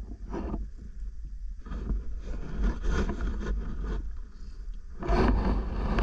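Underwater noise picked up by a diver's camera as the freediver moves along the lakebed: water moving over the housing with a steady low rumble and irregular rushes of noise, swelling louder about five seconds in.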